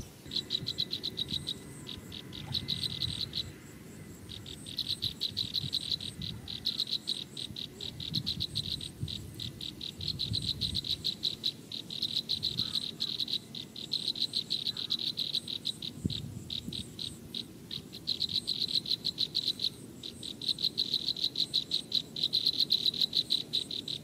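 Rapid, evenly pulsed high-pitched chirping in repeated bouts of one to two seconds, separated by short gaps.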